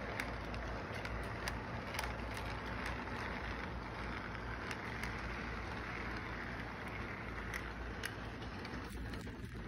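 Model train cars rolling past on the track: a steady rolling rattle with irregular sharp clicks as the wheels run over the rail joints, over a low hum.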